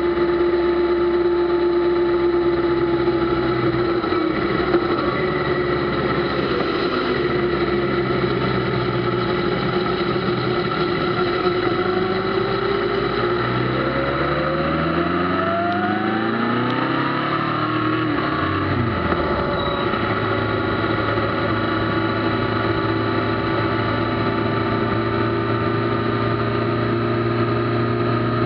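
Kawasaki ZZR1400's inline-four engine running under way. About halfway through, its pitch climbs for several seconds, then falls away quickly and settles steady again.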